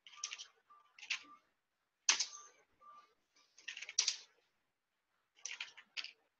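Computer keyboard typing in short bursts of keystrokes with pauses between them, as commands are typed at a command prompt.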